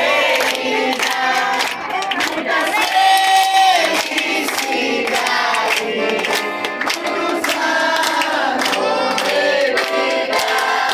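Accordion (sanfona) music playing with a group of voices singing along.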